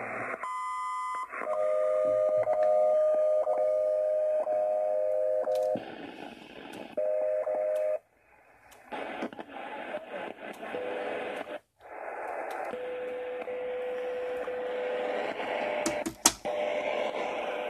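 HF ham radio receiver audio from an Icom IC-729 transceiver played through a Bluetooth speaker. Static hiss runs throughout, with steady whistling tones that come and go as the band is tuned. There is a short beep near the start, and the audio cuts out briefly twice.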